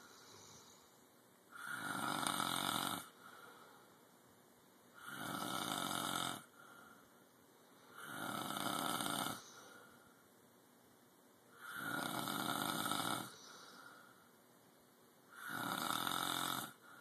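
Loud snoring: five long snores about three and a half seconds apart, each lasting a little over a second, with a fainter, shorter sound after each.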